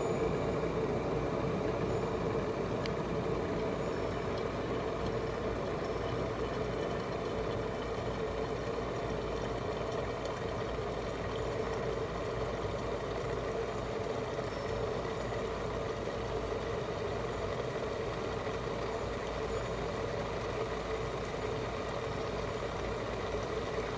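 Electric gooseneck kettle heating a small amount of water toward the boil: a steady noise of water heating that eases slightly over the stretch.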